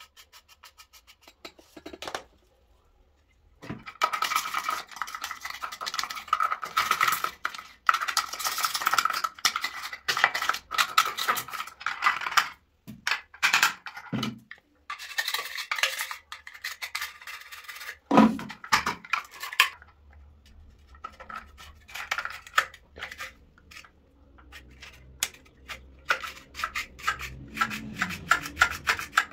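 Hands handling and working toilet cistern mechanism parts: irregular clattering, scraping and clicking, busiest in the first half, with lighter clicks later.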